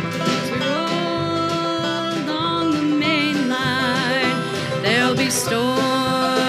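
Bluegrass band playing an instrumental break between verses: a harmonica with fast warbling high notes leads over banjo, electric bass and drums.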